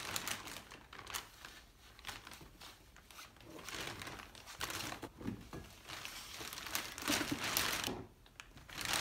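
Clear plastic vacuum storage bag crinkling in irregular rustles as skeins of yarn are packed into it, loudest about seven to eight seconds in.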